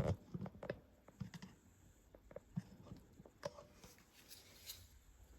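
Scattered light clicks and knocks of small items being handled, with a louder knock right at the start and fainter, irregular taps after it.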